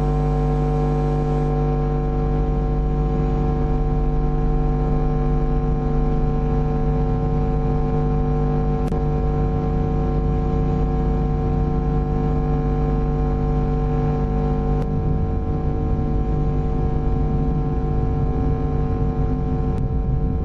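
Loud steady drone of many held tones sounding together, starting abruptly just before and holding unchanged with no melody, as in an analog horror soundtrack.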